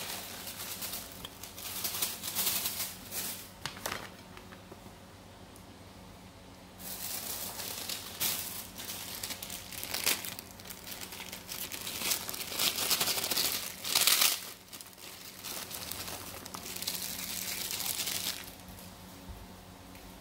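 Paper and plastic food wrapping being handled, crinkling in several bursts of a few seconds with quieter gaps between, loudest about two-thirds of the way through.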